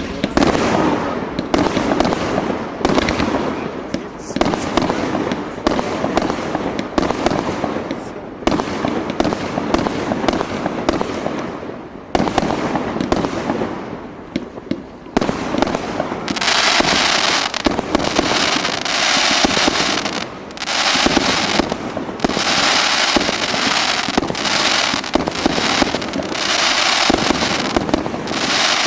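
Fireworks display: aerial shells bursting in a dense string of bangs. From about halfway a continuous high hissing crackle joins the bangs, in stretches of a few seconds with short breaks.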